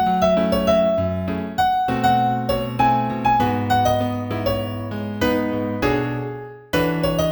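Solo piano tune in F major at a moderate tempo of about 99 beats a minute: a melody of single notes over sustained bass notes, each note struck and fading. Near the end the sound dies away briefly before a new chord is struck.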